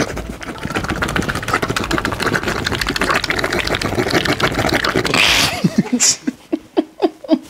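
A man making a noise with his mouth, his hands pressed to his lips and cheeks: a rapid, fluttering buzz lasting about five seconds that ends in a short hiss. Short bursts of laughter follow near the end.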